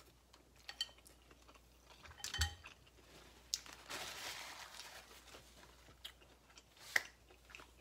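Faint eating sounds while noodles are chewed: a few light clicks and knocks of chopsticks against a ceramic bowl, the strongest about two and a half seconds in. A paper napkin rustles for about a second and a half around the four-second mark.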